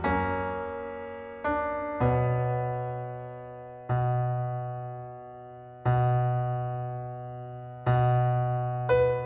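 Slow, soft piano music: sustained chords struck about every two seconds, each left to fade before the next.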